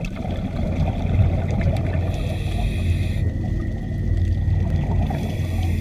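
Scuba diver breathing underwater through a regulator: a low, steady rumble of water and bubbles, with two hissing breaths, about two and five seconds in.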